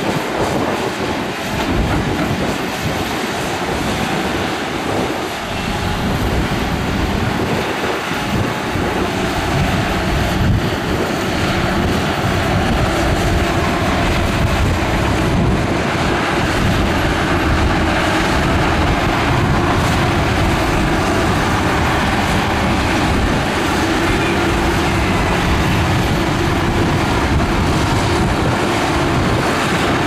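Heavy earthmoving machinery at work: a loud, steady mechanical din of diesel engines and moving machines, growing slightly louder after the first several seconds.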